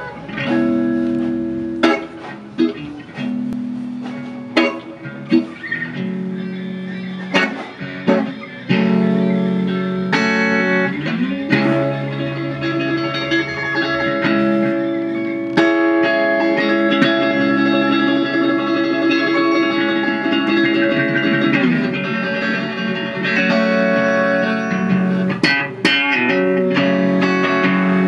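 Electric guitar, a Fender '62 reissue Stratocaster through a TS-808 Tube Screamer into a Fender Pro Reverb amp, playing picked single notes and held chords. There is a pitch slide about eleven seconds in.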